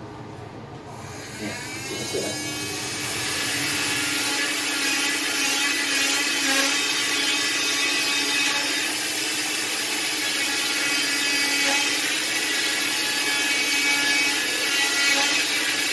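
Electric cast saw starting up about a second and a half in with a rising whine, then running at high speed with a steady whine and a hiss as it cuts through a leg cast.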